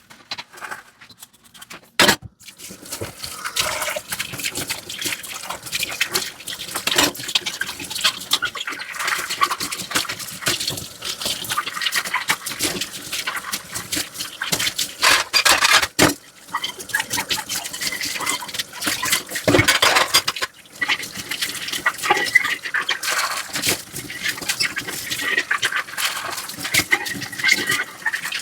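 Dishes being washed by hand under running water: scrubbing, splashing and small clinks of dishware, starting with a sharp knock about two seconds in.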